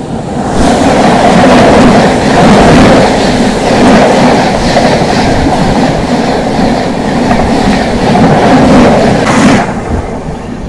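A train passing on the adjacent track, heard from the open door of a moving express coach: a loud rush of wheels and rail clatter that starts just under a second in and drops away suddenly about nine and a half seconds in as its last coach goes by. The quieter running noise of the train being ridden carries on underneath.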